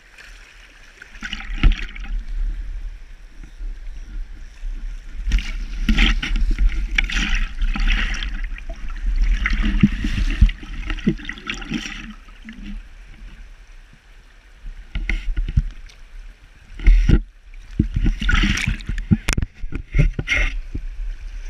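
Water splashing and gurgling in irregular bursts as a trout is scooped into a landing net in a shallow stream, with a few sharp knocks in the later part.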